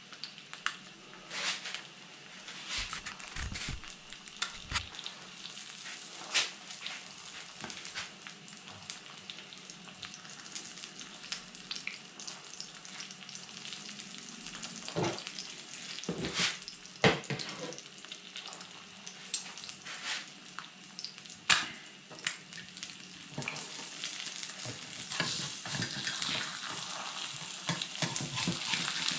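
Two eggs frying in a pan: a steady sizzle with frequent sharp spits and crackles, growing louder over the last few seconds.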